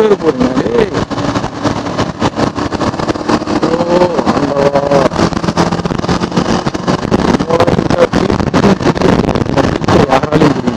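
KTM Duke 390's single-cylinder engine running on the move while riding, heard over heavy wind rushing and buffeting across the microphone.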